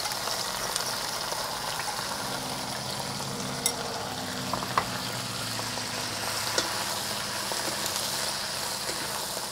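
Morning glory (water spinach) and oyster-sauce seasoning sizzling steadily in smoking-hot oil in a wok as it is stir-fried, with a few sharp clicks of the utensils against the wok.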